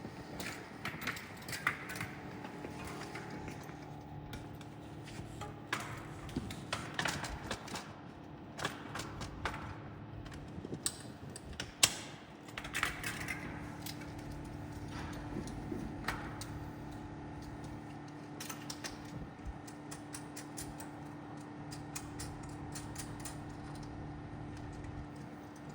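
Irregular clicks, knocks and rattles of metal equipment being handled, with one louder knock about halfway through, over a steady low hum.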